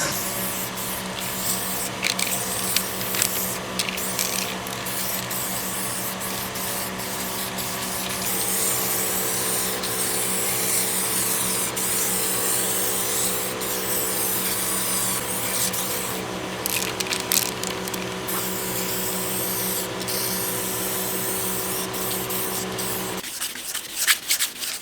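Paint spray gun hissing over a steady motor hum, spraying primer on the truck's sanded body; the hum stops shortly before the end.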